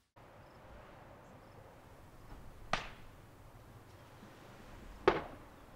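A flag flapping in the wind over faint, steady outdoor wind noise, with two short, sharp swishes of the cloth, one near the middle and one near the end.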